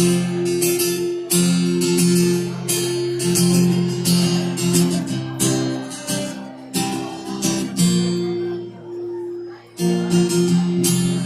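Acoustic guitar strummed in a steady rhythm, playing a song's intro. About eight seconds in the strumming stops and a chord is left ringing and fading, then strumming picks up again near the end.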